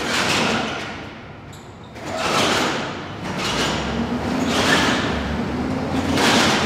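Pair of heavy carved wooden doors being pushed open: several rushing, scraping noises each lasting about a second, with thumps.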